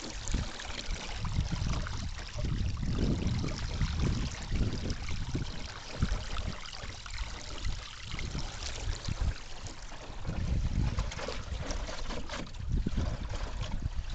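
Water rushing and splashing along the hull and rudder of a small homemade canoe yawl moving fast under sail, with uneven low buffeting of wind on the microphone.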